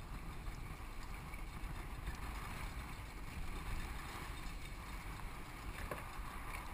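Wind rumbling on the microphone and water washing around a small wooden outrigger boat at sea, with a single knock about six seconds in.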